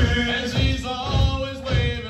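Male voices singing a military marching cadence over a steady low beat, about two beats a second.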